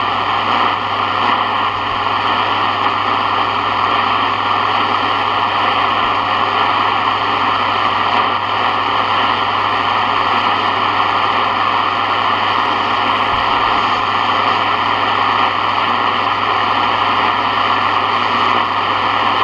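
Steady static hiss from a Sony ICF-7601 portable shortwave radio's speaker, tuned to an empty shortwave band with no station coming through.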